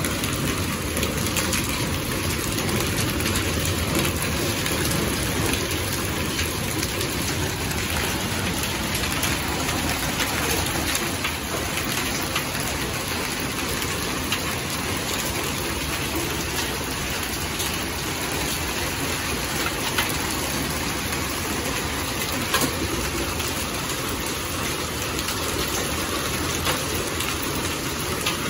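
Hailstorm with heavy rain falling steadily on paving and a garden, a constant hiss broken by scattered sharp clicks of hailstones striking.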